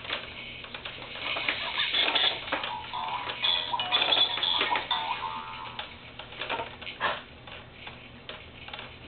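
Baby activity jumper (Jumperoo) playing tinny electronic toy music, with many quick clicks and rattles from its toys and frame as the baby bounces.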